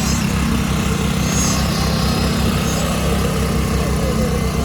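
Heavy diesel engine of concrete-pouring machinery running steadily, a low even drone with a fast pulse.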